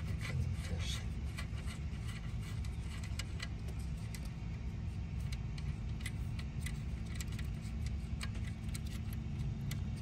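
Scattered light metallic clinks and rattles from tools and bolts as a loosened alternator is worked free of its mounting, over a steady low rumble.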